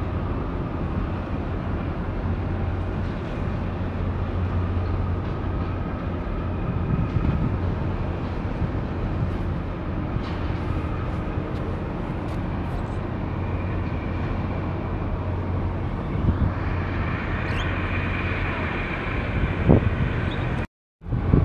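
Steady low engine drone from a large diesel-powered ship moving through the harbour, with a constant low hum over a wash of wind and water noise; a higher steady tone joins in about three-quarters of the way through. The sound cuts out completely for a moment near the end.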